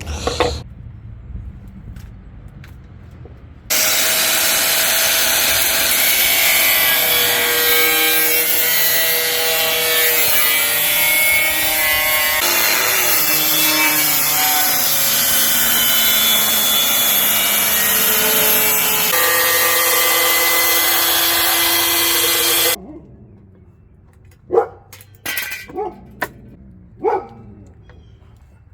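An electric power tool cutting, its motor running for about nineteen seconds with a whine that shifts in pitch a few times as the load changes, then shutting off abruptly. A handful of sharp knocks follow near the end.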